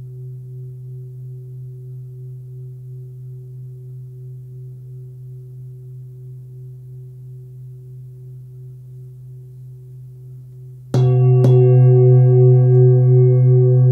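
Hand-forged Full Moon singing bowl, 26.5 cm and tuned to about 130 Hz, ringing out with a steady low hum that slowly wavers and fades. About eleven seconds in it is struck twice in quick succession and rings out much louder, with many bright overtones above the low note.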